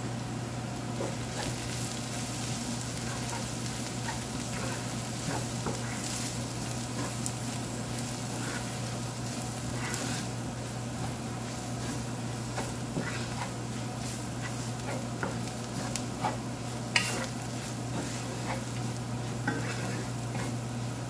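Onions, garlic, curry leaves and spice powders sizzling in oil in a stainless steel frying pan while a wooden spoon stirs and scrapes across the pan, making frequent irregular scraping ticks over a steady hiss. A steady low hum runs underneath.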